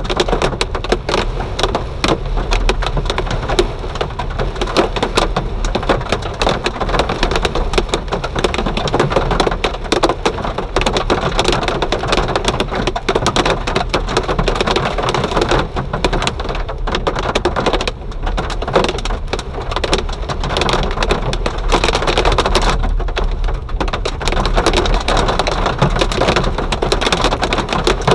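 Hail falling heavily, a dense, unbroken clatter of hailstones striking hard surfaces.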